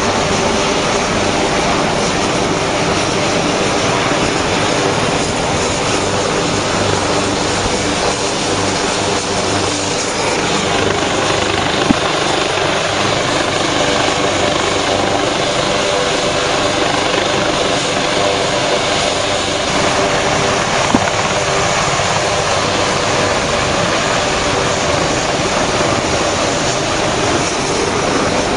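Medical evacuation helicopter's turbine engines and rotor running loudly and steadily at close range as it lifts off. Two brief clicks cut through, one a little before halfway and one about three quarters of the way through.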